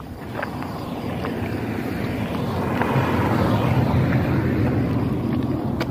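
A car driving past close by: engine hum and tyre noise building to a peak about three to four seconds in, then easing a little.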